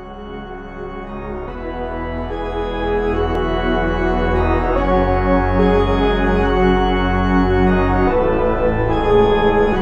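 Background music of held, sustained chords, swelling up in loudness over the first three seconds and then moving to a new chord every three seconds or so.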